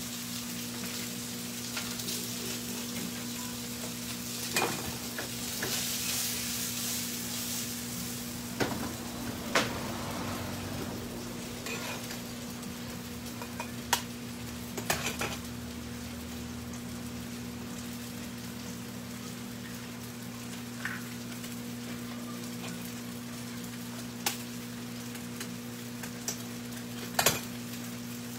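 Sliced Spam sizzling steadily in a frying pan on a gas stove. Sharp clicks and knocks of utensils and bowls come at intervals over a steady low hum.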